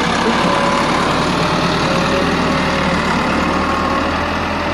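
Massey Ferguson 385 tractor's diesel engine running steadily as it pulls a loaded trolley.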